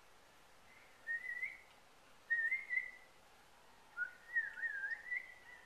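A person whistling three short phrases. Each is a clear single tone that bends up a little, and the last one is longer and wavers.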